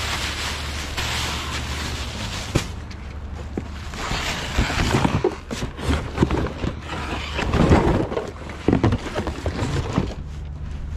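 Wind buffeting the microphone, then from about four seconds in irregular rustling and knocking of plastic trash bags and cardboard boxes being moved around in a dumpster.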